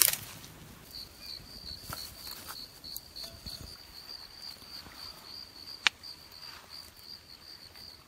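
An insect chirping steadily outdoors, a high pulsing trill that starts about a second in and keeps going. A few faint knocks, and one sharp click about six seconds in.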